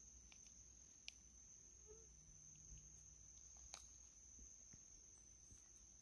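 Near silence, with a faint, steady, high-pitched cricket trill throughout and a couple of faint clicks.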